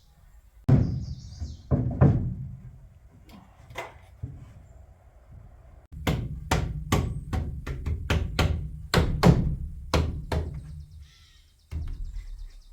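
Hammer blows, a few separate knocks at first and then a quick run of about a dozen strikes at two or three a second, each with a dull thud.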